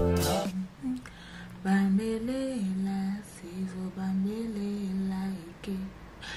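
Background music cuts off just after the start. Then a woman hums a slow tune softly, holding notes that glide gently up and down.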